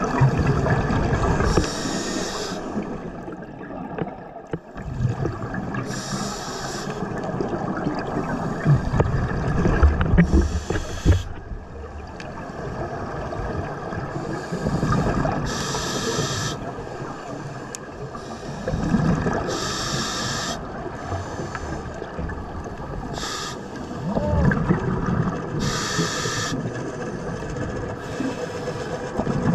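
Scuba diver breathing through a regulator underwater: a short hiss on each inhalation about every four seconds, seven in all, with bubbling exhalations in between.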